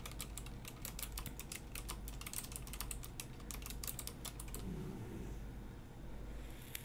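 Typing on a computer keyboard: a quick, irregular run of key clicks that stops after about four and a half seconds, then a single click near the end.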